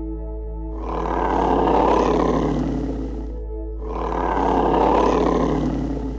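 Polar bear roaring twice, each roar lasting about two and a half seconds and swelling then fading, over background music.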